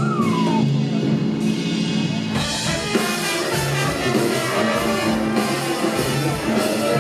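Live symphony orchestra playing, with strings, brass and drums; a short falling glide in pitch sounds right at the start.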